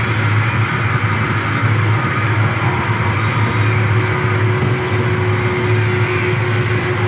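Experimental noise music: a loud, dense and unchanging wall of noise over a heavy low hum, with a thin held tone that comes through more clearly about halfway through.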